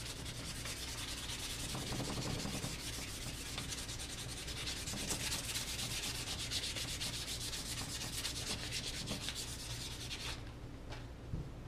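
Light hand sanding of a wooden rifle stock's freshly colour-restored finish with 400-grit sandpaper: a steady rasp of quick back-and-forth strokes that stops near the end.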